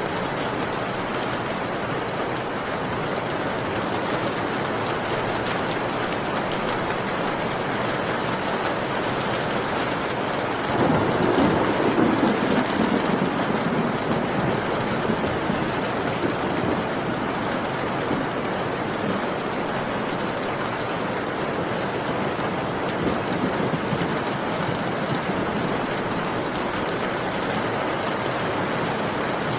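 Steady rain falling, with a roll of thunder that swells up about eleven seconds in and fades away over the next few seconds; a fainter rumble comes near the end.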